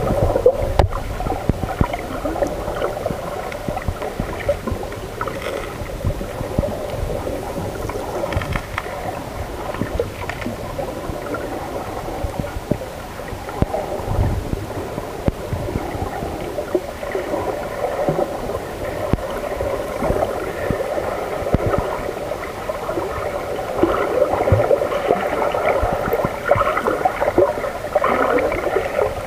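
Muffled underwater gurgling and sloshing of sea water around a submerged camera in shallow water, with irregular crackling and a steady low hum underneath.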